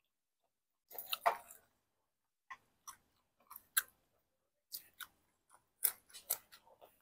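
Close-miked chewing and mouth smacking while eating by hand: a burst of clicky mouth sounds about a second in, then short irregular smacks and clicks.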